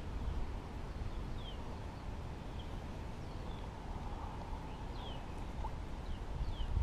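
Small birds chirping, scattered short falling notes every second or so, over a steady low rumble of wind on the microphone.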